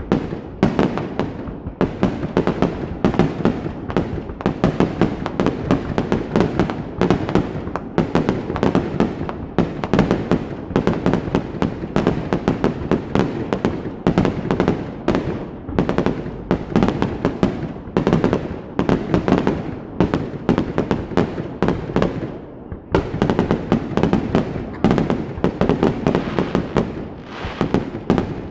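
Fireworks display: a dense, continuous barrage of overlapping bangs and crackles, several a second, easing briefly about three-quarters of the way through.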